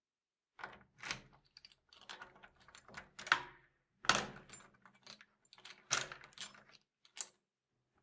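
A key rattling and turning in the lock of a light door: metallic jingling and clicking, with louder clunks about 3, 4 and 6 seconds in and a last short click just after 7 seconds.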